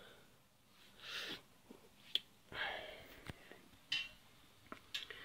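Faint breathing close to the microphone: two soft breaths out, about a second in and again after two and a half seconds, with a few small sharp clicks and knocks scattered between them from the handheld camera being moved.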